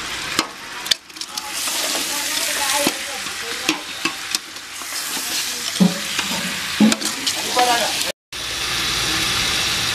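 Water poured onto raw salted chicken pieces in an aluminium pot, then a steel ladle stirring and scraping through the chicken, with several sharp clinks and knocks of metal on the pot.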